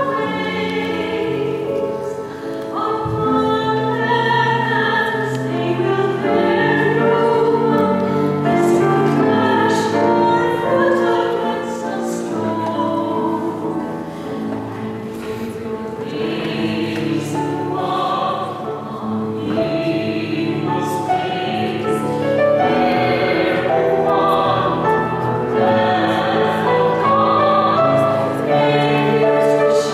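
A man and a woman singing a wedding song as a duet in long, held notes.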